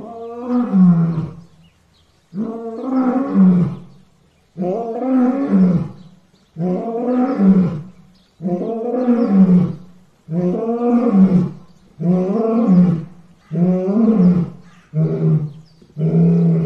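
Lion roaring: a series of long calls about every two seconds, each rising and then falling in pitch, turning shorter and quicker near the end.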